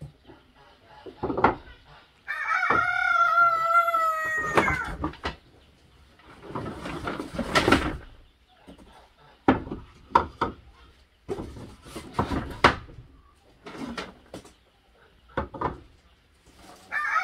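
A rooster crows once, a long call of about two and a half seconds starting about two seconds in, and another crow begins right at the end. Between them come scattered knocks and scrapes of square wooden hive boxes being lifted out of a cardboard carton and stacked on a wooden table.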